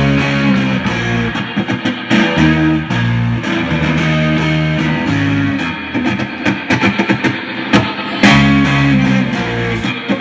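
Live rock band playing loudly: electric guitar, bass guitar and drum kit. The full band comes in with a sudden loud hit at the start, and it surges again about eight seconds in.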